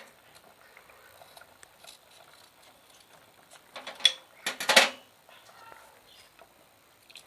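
Scissors snipping open a plastic sachet: one sharp snip about four seconds in, then a short, crisp cut just before five seconds. Faint small handling clicks otherwise.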